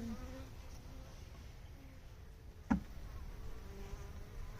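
Honeybees buzzing around an open hive during a frame inspection, a faint wavering hum. A single sharp knock sounds about two and a half seconds in.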